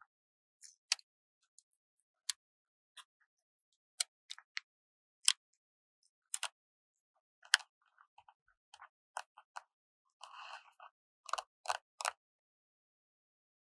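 Stickers being peeled and handled close to the microphone: scattered sharp ticks and crackles of paper and backing sheet, a short papery rustle about ten seconds in, then a few louder crackles in quick succession.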